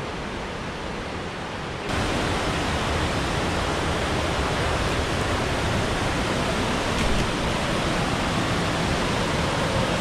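Steady rush of a rocky forest river tumbling over boulders in white-water cascades below a waterfall. It is fainter for the first two seconds, then suddenly louder and full for the rest.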